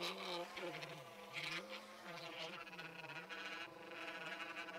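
DeWalt cordless random orbital sander running against an ironwood insert, a buzzing hum whose pitch wavers up and down.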